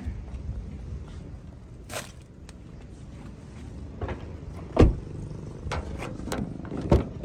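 Honda car doors being worked by hand: handle and latch clicks and knocks, with a heavy door-shutting thump about five seconds in, the loudest sound, and another thud near the end.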